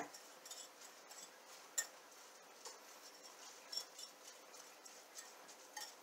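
Fork clinking faintly against a Corningware dish while scrambling microwaved eggs: a few soft, scattered clicks, the clearest a little under two seconds in.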